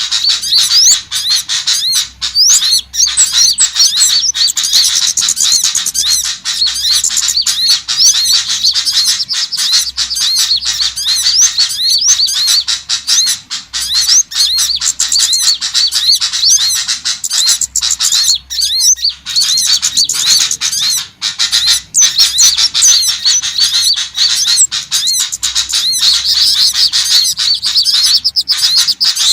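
A dense chorus of many small birds giving quick, high, overlapping chirps and squeaky twitters without pause: a small-bird lure recording.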